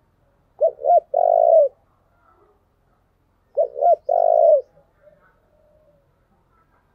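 Spotted dove cooing: two calls about three seconds apart, each two short coos followed by one longer coo.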